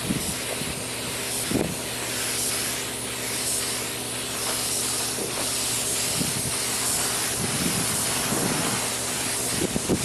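Cup-fed compressed-air paint spray gun hissing steadily as it sprays paint, with a steady low hum underneath.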